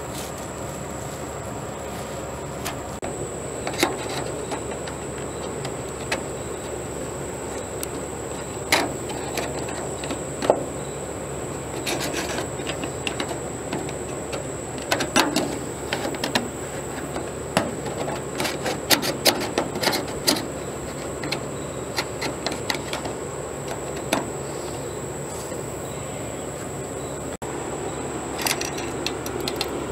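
Hands working on a sheet-metal gutter: rubbing, with scattered sharp clicks and taps of the metal parts being handled, over a steady background hiss.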